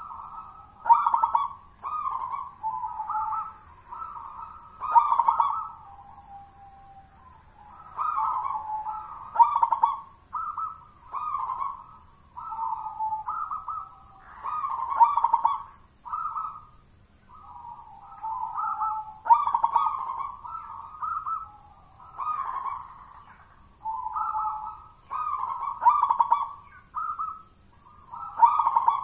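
Caged local zebra dove (perkutut) cooing its song: repeated phrases of quick, clipped coo notes, with short pauses between phrases.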